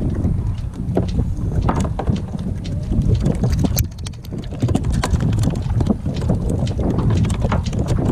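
Wind buffeting the microphone, with a run of quick, irregular taps and slaps: freshly caught herring flapping on the sabiki rig against the kayak's plastic hull while they are unhooked.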